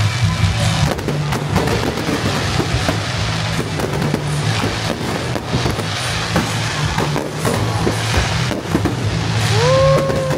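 Fireworks show: repeated bangs and crackles of aerial fireworks bursting, over a music soundtrack with a steady bass, and a short tone that rises and falls near the end.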